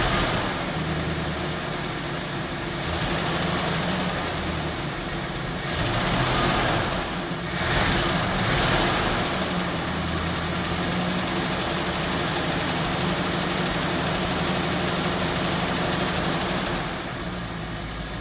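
1969 Mercury Cougar's V8 idling steadily on its first start after sitting, with a few short louder surges about six to nine seconds in.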